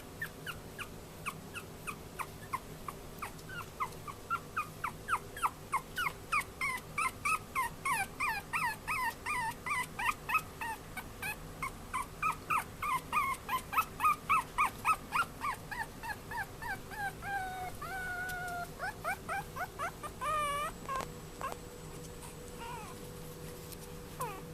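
Chihuahua puppy whimpering in runs of short, high, falling yelps, about three a second, then a few longer drawn-out whines and a wavering cry near the end.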